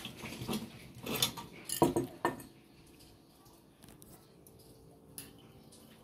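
Metal clinks and knocks from a kerosene pressure lantern being handled, a handful of them in the first two and a half seconds, then quiet while it preheats.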